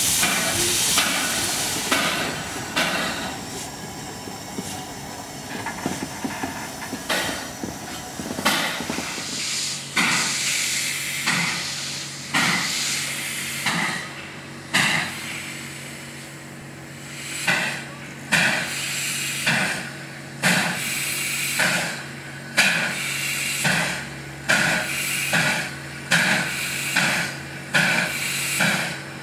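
Steam locomotive working: first steam hissing with uneven blasts, then, from about nine seconds in, slow exhaust chuffs about once a second as a locomotive pulls away, with steam hissing from its open cylinder cocks. A steady low hum sits under the chuffs.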